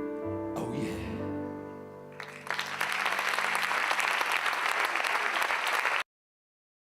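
The song's final chord dies away, then an audience starts applauding about two seconds in. The applause cuts off suddenly about six seconds in.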